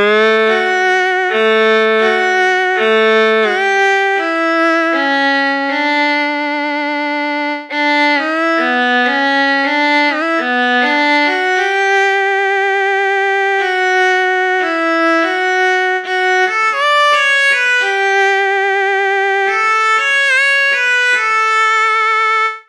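Roland Fantom 06 synthesizer playing a solo melody on a violin patch, held notes with vibrato and quick ornamental slides between notes.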